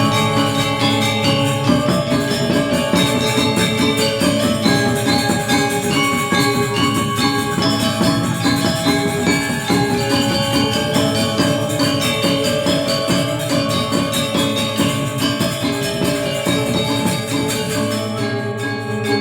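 Balinese gamelan playing: bronze metallophones ring in a fast, dense stream of notes, with bright jingling high tones above. The texture thins a little near the end.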